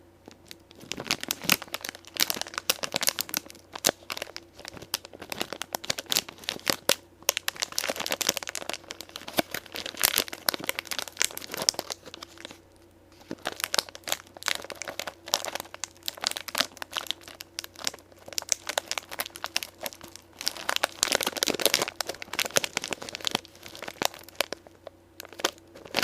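Plastic pork crackles snack packet being crinkled and handled: dense crinkling and crackling in bursts, with short pauses about twelve seconds in and again near the end.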